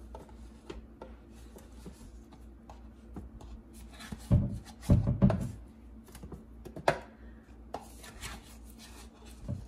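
A spoon scraping and tapping as ice cream is scooped from a cup into a glass blender jar, with a few soft thumps around the middle as clumps drop in.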